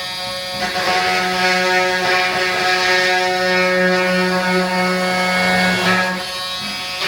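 A small handheld power tool buzzing steadily as it trims a vinyl floor plank. Its hum deepens and strengthens from about half a second in until near the end, as the blade bites into the plank.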